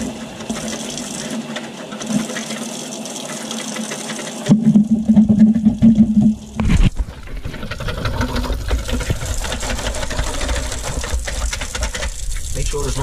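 Kitchen tap running into a plastic bowl while a wire whisk beats a thin white mixture in it, with a quick rattling whisk stroke throughout. The whisking is loudest for about two seconds near the middle.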